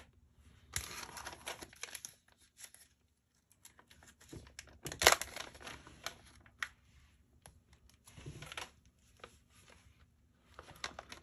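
Clear plastic bags crinkling and rustling in irregular bursts as they are handled and opened, with one louder crackle about five seconds in.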